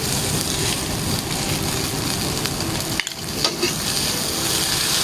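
Fried rice with scrambled egg sizzling in a frying pan as it is stirred with a ladle, a steady sizzle with a short lull about three seconds in.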